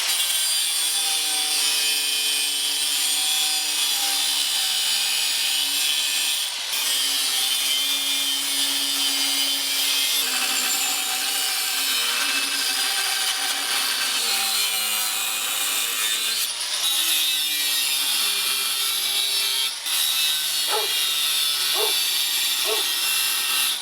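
Angle grinder cutting through steel bar stock, running continuously with a loud, hissing grind. Its motor tone shifts as the disc bites. The sound breaks off briefly three times.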